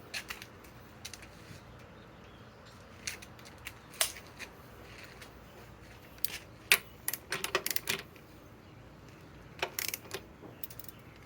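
Scattered light metallic clicks and clinks at irregular intervals, with small clusters around the middle and near the end: a steel socket being picked out and fitted by hand.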